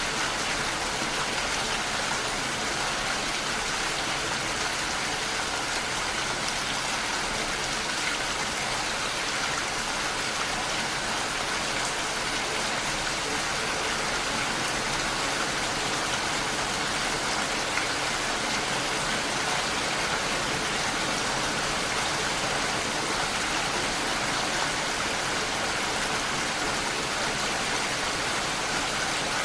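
Steady rainfall, an even hiss of many drops with fine pattering, unchanging throughout.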